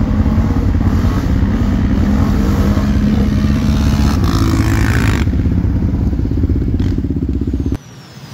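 Can-Am Outlander 570 ATV's V-twin engine running steadily under way, its pitch shifting a little with throttle. It cuts off suddenly near the end.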